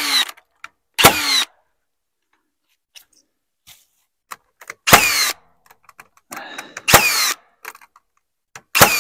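Cordless nail gun firing four times into a wooden frame, about a second in, near five seconds, near seven seconds and near the end. Each shot is a sharp bang followed by a short whine falling in pitch. A brief lower whir comes just before the third shot.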